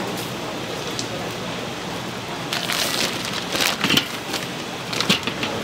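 A steady hiss of background noise, with bursts of rustling and knocking from food being handled at a sundae steamer: one cluster between about two and a half and four seconds in, and another near the end.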